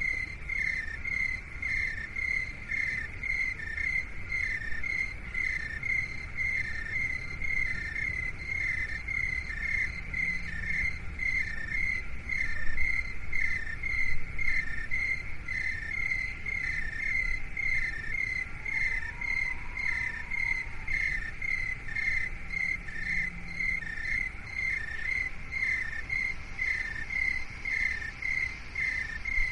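Crickets chirping in a steady, even rhythm of short pulses, over a low, steady rumble.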